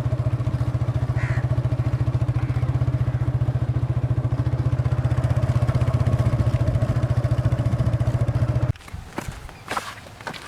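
An engine idling with a steady, even throb, which cuts off abruptly near the end and gives way to a few faint knocks.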